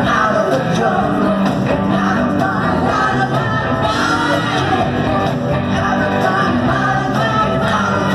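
Rock band playing live, with a sung vocal over drums, electric guitar and sustained bass notes, echoing in a large hall.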